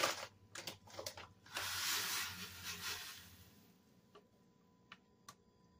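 A foil rice-side packet being handled and torn open: a few light clicks, then a crinkling rustle that lasts about two seconds and fades, then a few faint ticks.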